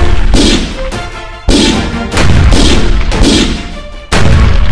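Dramatic background music with heavy booming hits every second or so, each dying away before the next.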